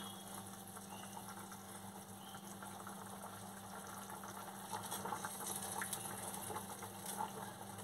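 Spiced fish curry gravy boiling in a frying pan: a faint, steady bubbling with scattered small pops, a little busier from about five seconds in, over a steady low hum.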